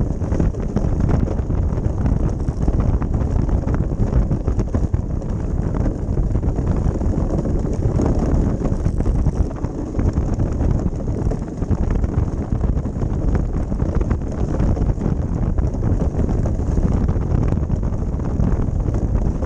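Ice boat runners rumbling over lake ice, with many small clicks and knocks, under steady wind buffeting on the microphone.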